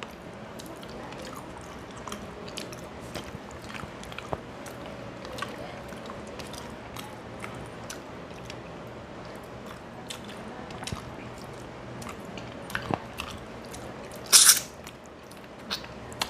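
Close-up mouth sounds of someone eating a rohu fish head by hand: chewing, with many small wet clicks and crunches. One louder noise, about half a second long, near the end.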